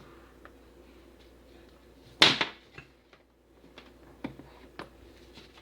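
One sharp, loud knock about two seconds in, followed by several lighter clicks and taps of hard tools and containers being handled during soap making.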